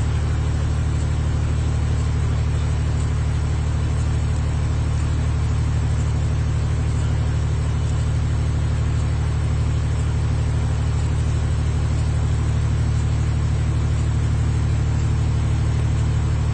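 Steady low rumble of a vehicle engine idling, unchanging throughout.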